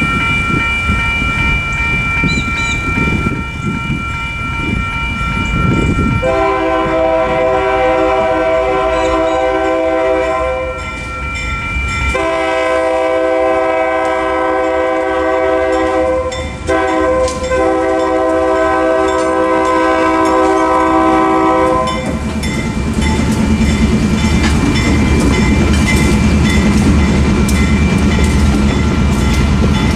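Western Cullen Hayes Type 3 electronic crossing bell ringing steadily while a freight train's horn sounds the long-long-short-long grade-crossing signal. After the last long blast, GE diesel locomotives rumble past with wheels clicking over the rails.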